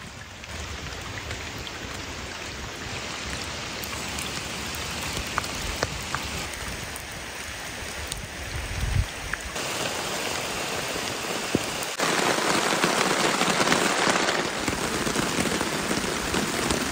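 Steady rain falling, an even hiss of many drops with scattered single drop ticks. It gets louder in a sudden step about twelve seconds in.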